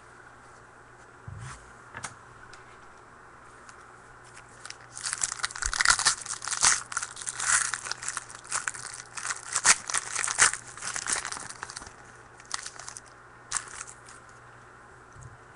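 Trading card pack wrapper being torn open and crinkled: a dense run of crackling about five seconds in that lasts some six seconds, with a few light clicks of handling before and after.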